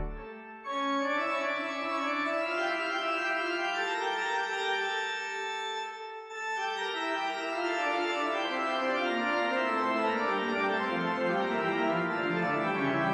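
Organ music: sustained chords with a short dip about six seconds in, then a line of low notes stepping downward.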